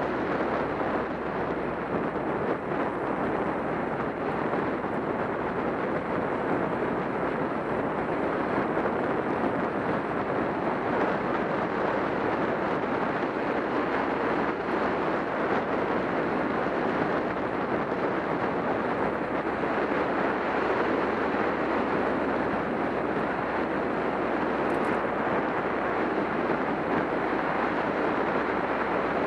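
Steady wind rush over a helmet-camera microphone while riding a motorcycle, with the bike's engine running steadily underneath.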